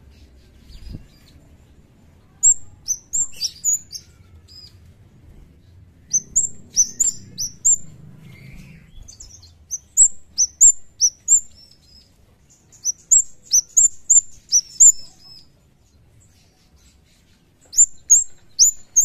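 Scarlet-headed flowerpecker calling: bursts of three to six sharp, very high notes, each slurring quickly downward, repeated every few seconds.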